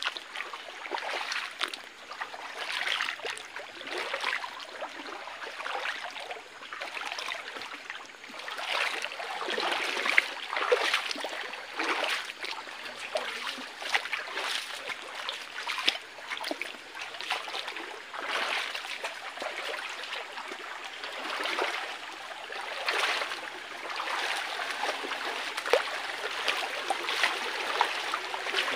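Feet wading and splashing through a shallow, rocky stream in uneven surges, over the steady trickle of the running water.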